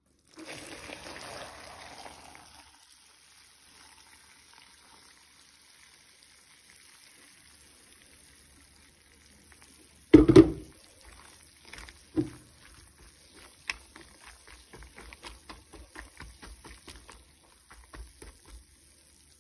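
Water poured over dried eggplant strips in a plastic bowl for the first couple of seconds. Then come two loud knocks and a run of small wet clicks, a few a second, as a hand works the soaking pieces.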